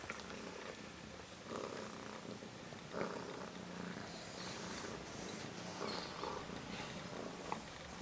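Domestic cat purring steadily while giving birth, with her newborn kitten just delivered.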